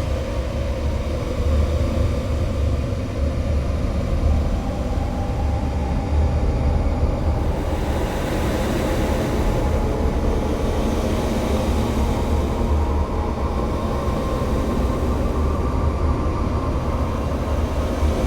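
A steady, dense rumbling noise with a strong deep hum underneath and a few faint held tones: a noise passage of a recorded music track.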